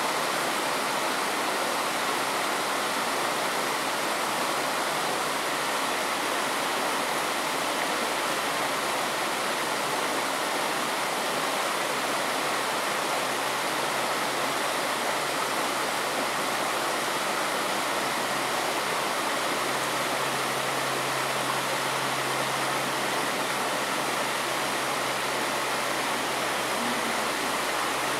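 Steady rushing of a shallow stream running over stones. A faint low hum comes in about two-thirds of the way through.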